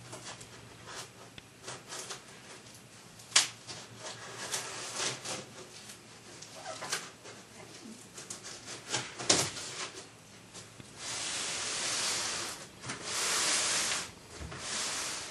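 A large cardboard shipping box being cut open with a pocket knife and handled: scattered clicks, scrapes and a few sharp knocks of blade and cardboard, then two longer rasping sounds of about a second and a half each near the end.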